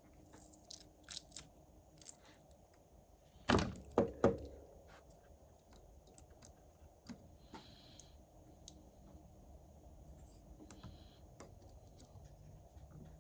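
Small hand tools clicking and tapping on a workbench during a phone battery repair, with three louder knocks in quick succession about three and a half seconds in.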